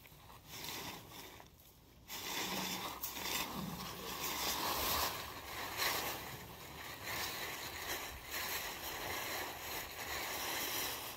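Plastic tarp rustling and crinkling as it is dragged off a truck bed and bunched up, a rough, continuous scraping hiss that grows louder about two seconds in.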